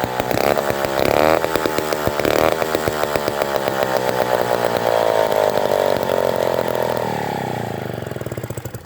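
Vintage Lombard Governor 3-1/2D chainsaw's AH47 two-stroke engine running at high revs while cutting pine, its pitch dipping and recovering a few times early on. About seven seconds in the throttle comes off and the engine note falls steadily, winding down toward idle.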